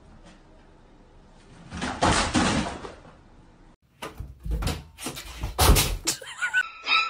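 A cat leaping at a closet door, the door banging several times as the cat hits it and it swings. Before that there is a short loud rush of noise, and a repeating honk-like sound starts near the end.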